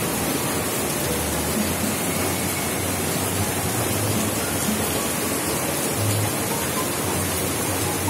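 Steady rushing hiss of rain falling on the garden and paving, mixed with the rush of a nearby waterfall.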